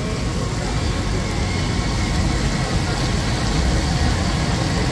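Whole fish deep-frying in a large karahi of hot oil: steady sizzling and bubbling over a constant low rumble.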